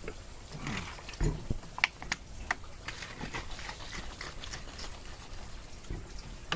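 Milky water, egg and MSG mixture sloshing inside a capped plastic drinking-water bottle as it is shaken by hand to mix it, with irregular clicks and knocks from the plastic.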